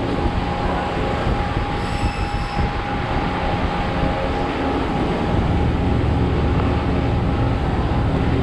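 Steady machinery rumble with a constant low hum, and a brief faint high whine about two seconds in.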